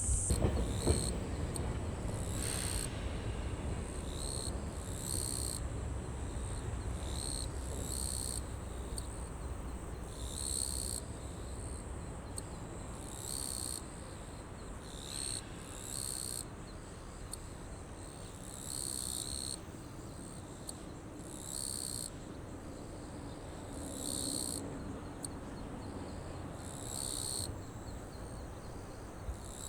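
Insects calling in short high-pitched bursts that repeat about every two to three seconds. A low rumble fades away over the first few seconds.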